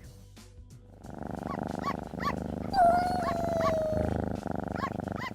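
An animal's close, fast-pulsing rumble, like a purr, with short chirping notes and a thin whine that glides slightly down about three seconds in.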